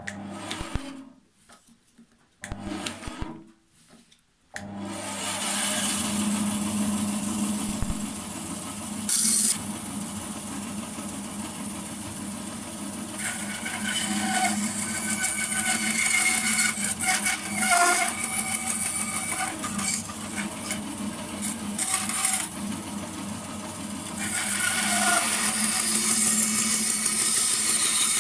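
Bandsaw starting up about four seconds in after a few short handling noises, then running with a steady hum while small pieces of wood are cut on it, the blade's hiss rising now and then as it cuts.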